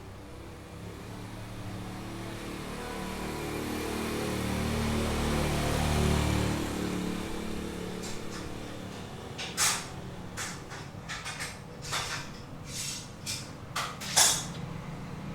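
A motor vehicle's engine passes by, growing louder to a peak and then fading. After it come a dozen or so irregular sharp knocks, the loudest near the end.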